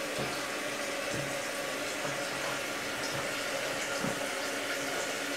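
Toilet tank refilling after a half flush: a steady hiss of water running into the tank and bowl.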